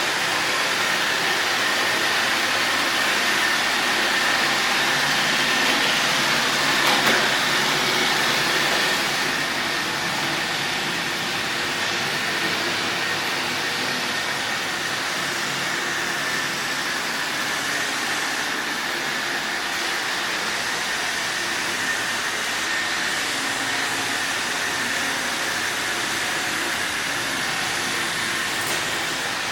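Robot vacuum cleaner running: a steady whir with a high, constant whine. It is a little louder for the first nine seconds, with a single knock about seven seconds in.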